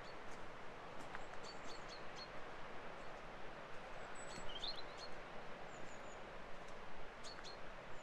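Small birds chirping, with short high calls scattered through and a quick run of chirps about halfway, over a steady rushing background hiss.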